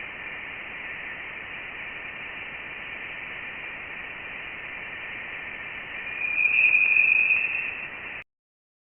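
Space audio, an eerie static-like hiss with a thin whistling band above it, typical of spacecraft radio or plasma-wave data played as sound. The whistle swells louder about six seconds in, then everything cuts off abruptly.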